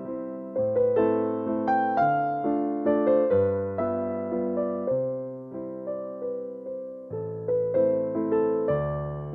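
Background music: a gentle keyboard piece, soft piano-like notes played a few a second, each struck and fading away.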